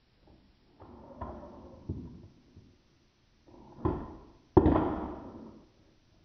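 Handboard wheels rolling and scraping on a car dashboard, then two sharp landings about four seconds in, the second the loudest, as the board is flipped and slapped back down.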